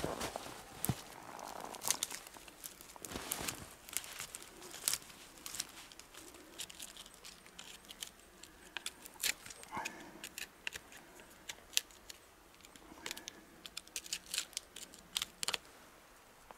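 Small dry twigs snapping and brushwood and birch bark crinkling as they are packed between upright log poles, a scatter of irregular sharp cracks over soft rustling, busiest in the second half.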